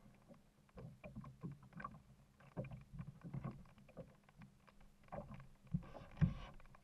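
Kayak paddling: water splashing and lapping at the hull in uneven strokes, with the two loudest splashes close together near the end.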